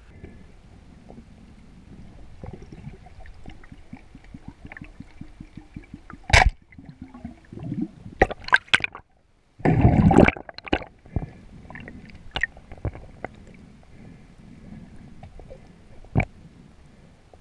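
Water sloshing and gurgling around a diver's camera at and below the sea surface, with a run of quick clicks a few seconds in, several sharp knocks, and a loud rush of water about ten seconds in.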